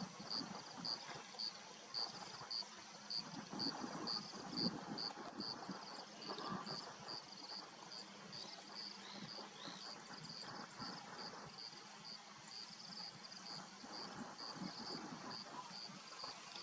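A lion chewing a warthog carcass: irregular crunching and tearing, over an insect chirping steadily at about three high-pitched pulses a second.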